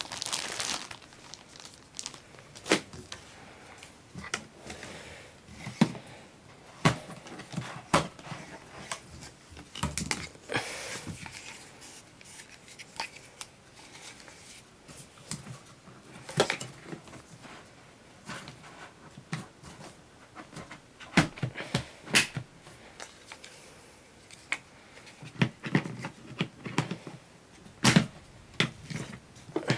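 Plastic parts of a Miele S6 canister vacuum being handled and fitted together: scattered sharp clicks and knocks, with short stretches of paper rustling.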